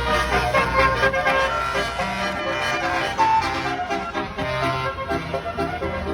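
A bus's basuri musical horn system playing a tune, several notes at once over a low bass line.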